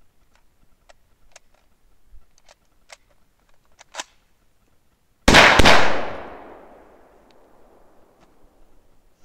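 1941 Tula SVT-40 semi-automatic rifle in 7.62x54R firing: a loud report about five seconds in that rings out and dies away over more than a second. Before it, light clicks and knocks of the rifle being handled.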